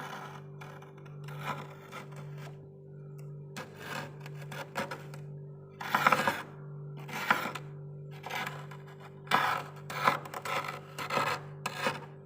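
A spoon scraping frost in about a dozen short strokes, some stronger than others, with a steady low hum beneath.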